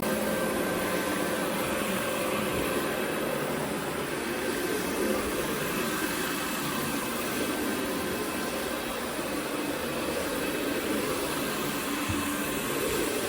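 Carpet-cleaning equipment running with a steady, unbroken drone.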